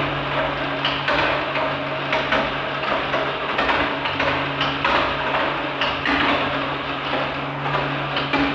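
Small electric toy motor humming steadily while plastic parts and marbles clatter and click continuously, typical of a motorised marble-run or toy track mechanism running.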